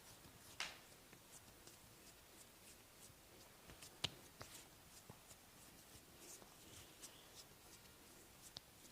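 Hands working over skin during a massage, faint and close: light rubbing and ticking, a brief swish about half a second in and one sharp click about four seconds in.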